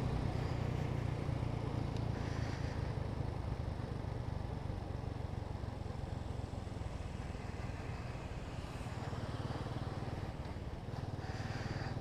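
Motorcycle riding noise picked up by a phone headset microphone inside the rider's helmet: a steady low rumble of engine and passing air.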